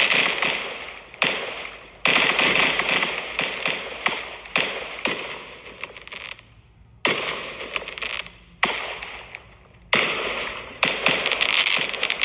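Aerial fireworks shells bursting with sharp bangs, each followed by a long crackle of glittering stars as it fades. A new burst comes every one to two seconds, with a denser run of crackling near the end.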